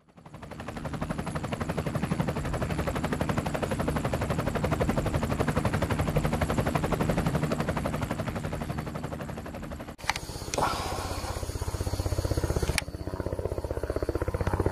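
Helicopter rotor chopping in a fast, even beat, fading in at the start. About two-thirds of the way through the sound changes abruptly to another stretch of rotor noise, with two sharp clicks.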